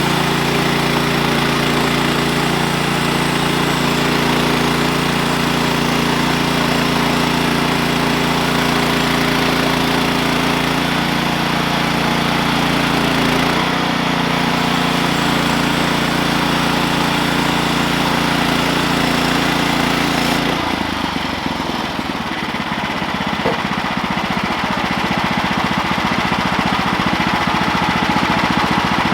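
Portable sawmill's gas engine running steadily. About twenty seconds in, the steady hum changes abruptly to a rougher, pulsing sound.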